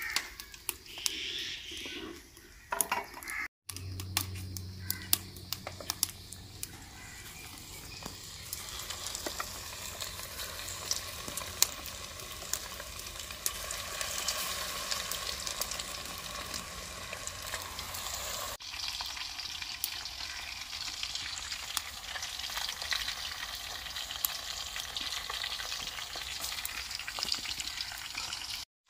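Marinated, batter-coated chicken pieces deep-frying in hot oil in an aluminium karahi, with a steady sizzle full of sharp crackles and pops as pieces are dropped in and stirred.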